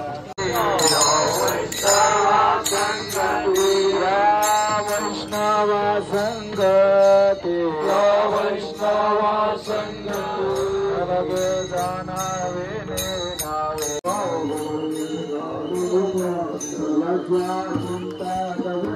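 Warkari devotional singing: men chanting a bhajan into microphones, amplified through a horn loudspeaker, with small hand cymbals clashing in a steady rhythm.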